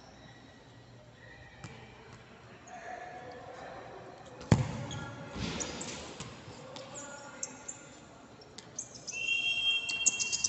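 A futsal ball kicked hard about four and a half seconds in, followed by a second thud as it is struck or stopped, each echoing around a large sports hall. A short high squeak comes near the end.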